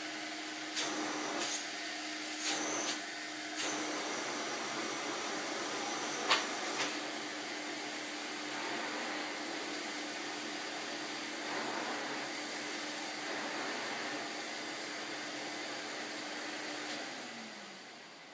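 1985 Kerstar KV15/1 commercial tub vacuum running steadily as its floor tool is pushed over carpet, with a few short clicks in the first seven seconds. Near the end the motor winds down, its hum falling in pitch and fading.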